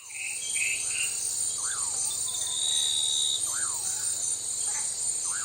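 A steady, high-pitched chorus of insects with a bird repeating a short up-and-down whistle about every two seconds, and a few brief higher calls in the first second.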